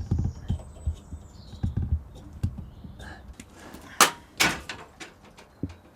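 Handling noise: soft low thuds, then two sharp knocks about four seconds in, as the tape deck is worked into its rack.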